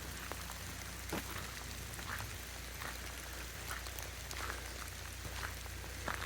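Scattered drips and light ticks of rain and melting ice falling around the trees, over a steady low hum.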